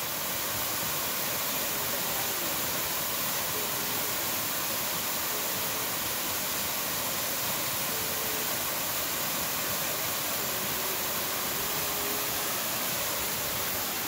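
Waterfall pouring down a rock face: a steady, unbroken rush of falling water.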